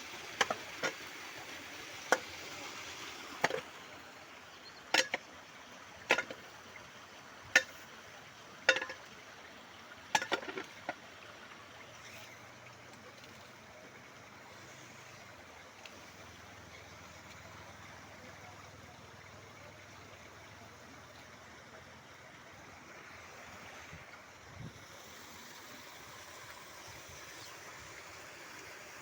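Rain falling steadily, with heavy drops landing one at a time on a hard surface as sharp knocks about a second apart for the first ten seconds or so.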